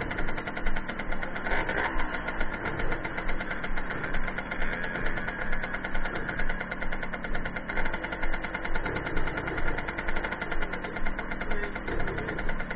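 Small two-stroke moped engine idling, running steadily with a rapid, even beat.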